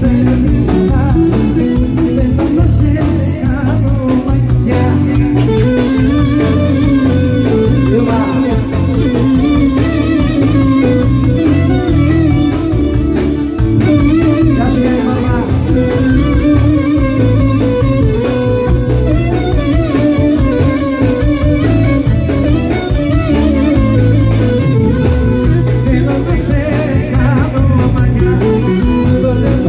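Amplified live Greek band music: a singer over plucked string instruments and a steady beat, played without a break.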